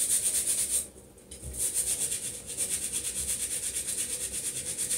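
Stiff scrubbing brush scrubbing wet, soapy hands in quick, even back-and-forth strokes, with a brief pause about a second in.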